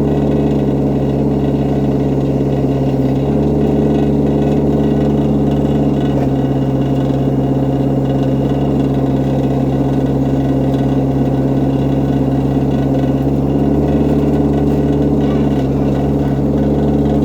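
Excavator engine running at a steady speed, a constant hum that barely changes.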